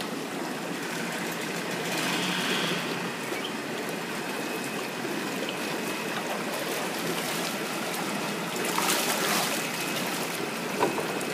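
Water splashing and sloshing in a shallow holding pool as workers wade and handle large catfish, over a steady rush of running water. A louder burst of splashing comes about nine seconds in.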